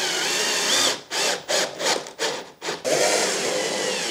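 Cordless drill-driver driving a screw into a white-coated board and boring into it, its motor whine rising and falling. It runs steadily for about a second, then in a string of short bursts, then steadily again.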